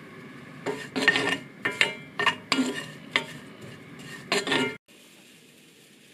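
Wooden spatula scraping and clacking against a cast iron skillet in about seven quick strokes, stir-frying sliced Chinese leek and ginger, over the steady sizzle of the oil. The stirring and sizzle stop abruptly near the end.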